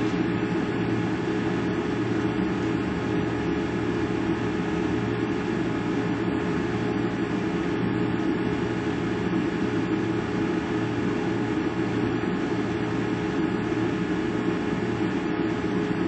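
A steady, unchanging hum with hiss, a constant mechanical drone with no breaks.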